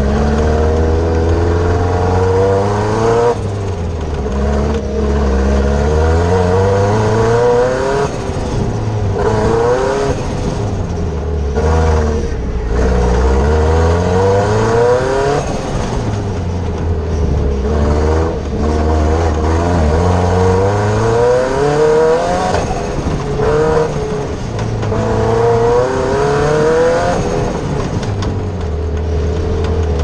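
Fiesta Proto Cosworth off-road racer's engine heard from inside the cockpit, revving hard and climbing in pitch, then dropping sharply at each gear change or lift, over and over as the car is driven flat out on a dirt course.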